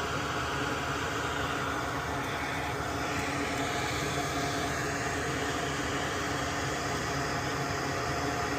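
Steady whooshing fan or blower noise with a faint hum under it, running unchanged throughout.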